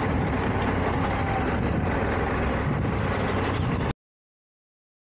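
Honda Africa Twin DCT's parallel-twin engine running while riding, with steady wind and road noise on the on-board microphone, cutting off suddenly about four seconds in.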